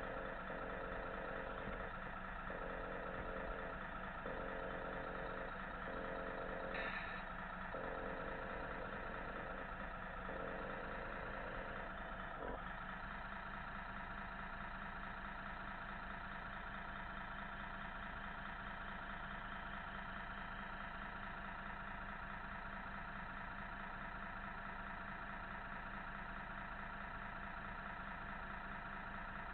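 Engine-sound module of a radio-controlled Scania model truck playing a steady diesel idle. A lower tone pulses on and off with it for the first twelve seconds or so, then stops.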